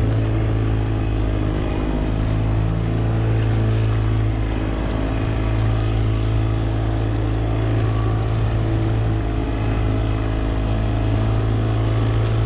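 A fishing boat's engine running at low trolling speed: a steady, unchanging low drone.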